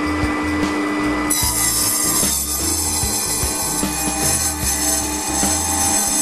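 Proxxon mini table saw running and cutting wood; the hiss of the cut spreads and gets brighter about a second in. Background music plays throughout.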